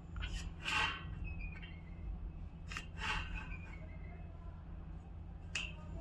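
Marker pen scraping lines onto a galvanized steel cable tray along a steel try square, three short strokes about two and a half seconds apart, with light clicks of the square against the metal. A steady low hum runs underneath.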